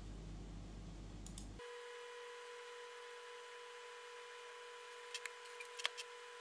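Faint steady electronic hum, with a quick run of mouse clicks near the end.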